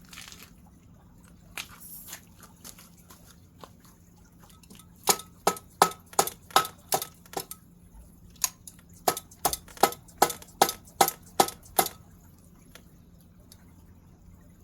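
A quick series of sharp metallic taps, each with a brief ringing tone, about two to three a second in two runs with a short pause between, over a faint steady hum.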